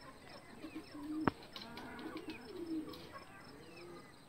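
Chickens calling with low, drawn-out clucks and scattered higher chirps, and one sharp click about a second in.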